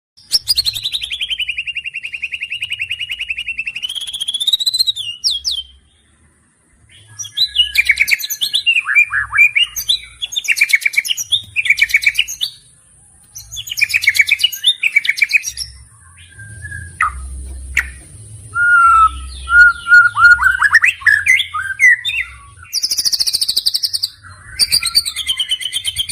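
Bird calls: a long, rapid, pitched trill, then several runs of quick chirps and falling and rising notes in bursts separated by short pauses.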